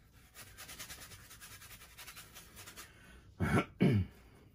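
A paintbrush scrubbing paint onto a stretched canvas in quick, even strokes, then a man coughs twice near the end, much louder than the brushing.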